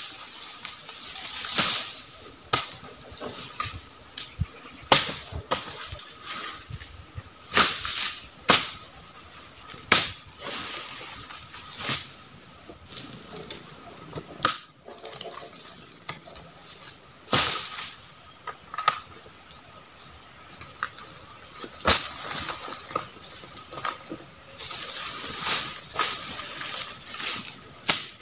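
Steady high-pitched drone of an insect chorus in oil palm plantation undergrowth, with sharp knocks and clacks every one to three seconds from a harvester working among cut palm fronds and fruit bunches.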